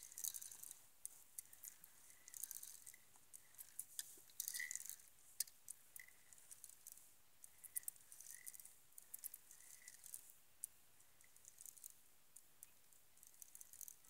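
Near silence with faint, irregular small clicks and rattles, a few bunched together around the middle, and several brief faint high tones.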